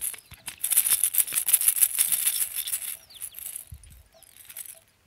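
Plastic baby toy rattle shaken rapidly: a dense, loud rattling for about three seconds that then thins out and fades.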